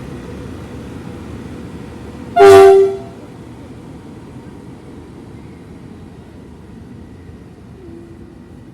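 One short, loud blast of a diesel locomotive's horn, about half a second long, about two and a half seconds in, over the steady rumble of the train.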